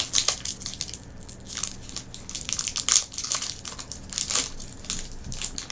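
Plastic Kit Kat wrapper crinkling and crackling as it is torn open by hand, in irregular spells.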